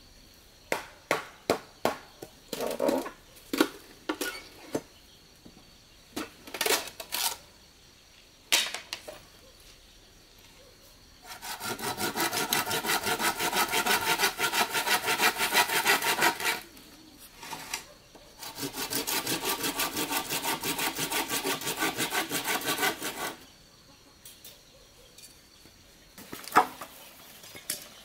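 A series of sharp knocks as a blade chops into green bamboo, then a hand saw cutting through a bamboo pole in two long bouts of rapid, even strokes.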